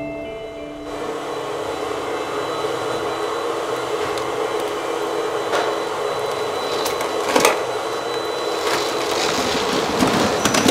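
Vacuum cleaner switching on about a second in and then running steadily, with a few sharp knocks along the way.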